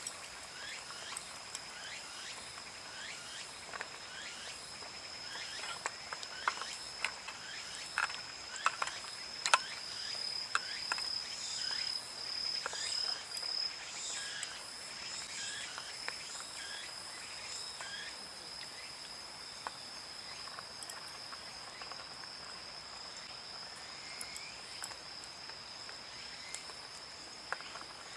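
Insects, likely crickets, trilling steadily on one high unbroken tone, with scattered sharp clicks and pops, thickest in the first half.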